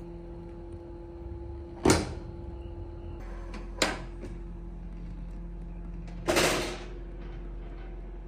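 Bambu Lab A1 3D printer with a SwapMod automatic build plate changer running: a steady motor hum, with sharp clacks about two and four seconds in and a longer half-second clatter near the end.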